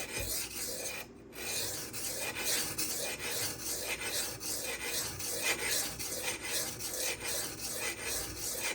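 M390 steel knife blade being stroked back and forth across a silicon carbide sharpening stone, a steady scraping with a short break about a second in. The bevel is being ground down and no burr has formed yet.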